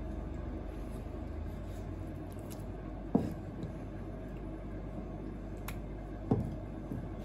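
Handling of wet red clam flesh on a plastic cutting board with a knife in hand: two dull knocks about three seconds apart over a steady background hum.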